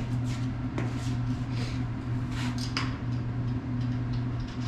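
Scattered light metal clicks and taps as a bolt and plates are fitted onto a new fence latch on a kennel pole, over a steady low hum.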